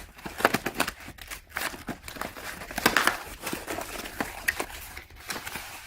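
Packing material in a cardboard shipping box crinkling and rustling in uneven handfuls as it is pushed aside.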